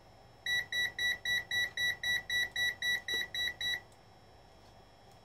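Mestek DM91 multimeter's buzzer beeping rapidly, about four beeps a second for some three seconds, starting about half a second in. This is its live-wire test alarm, signalling that the probe tip is on the hot side of a mains cable.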